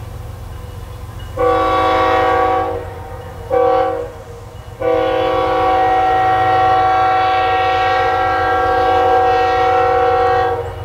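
Freight locomotive air horn: a blast of about a second and a half, a shorter blast, then one long held blast of about six seconds, the end of a grade-crossing horn sequence, over the low rumble of the passing train.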